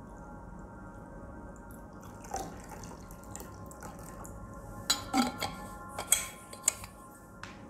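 Water poured from a stainless-steel flask into a ceramic plate, trickling and then dripping as the pour ends. There are a few sharp drips and taps between about five and seven seconds in.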